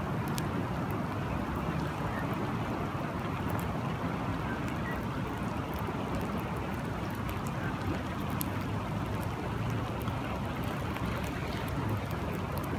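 Steady rushing of a river's flowing water in the rain, with scattered faint ticks of drops.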